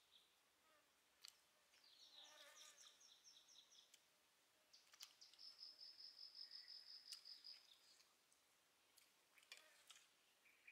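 Faint high-pitched animal trills in the open air: a pulsed trill lasting about two seconds, then a steadier one of about three seconds, with a few faint clicks of a spoon against a metal plate.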